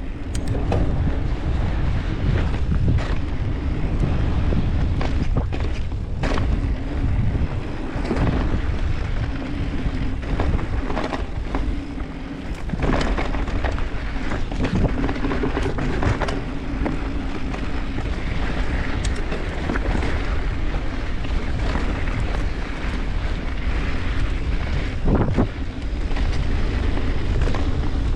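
Mountain bike riding downhill on a dirt trail: wind buffeting the microphone, tyres rolling over dirt and rock, and frequent short knocks and rattles from the bike over bumps.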